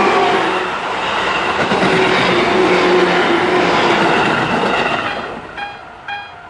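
Electric commuter train passing over a level crossing, its wheels clattering on the rails, dying away about five seconds in. Then the electronic level-crossing alarm rings through on its own in short dings about twice a second.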